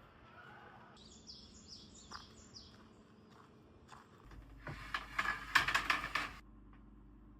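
A small bird sings a quick run of about six short, high, falling chirps. About four seconds in comes a louder burst of rattling and rustling lasting two seconds, which stops abruptly.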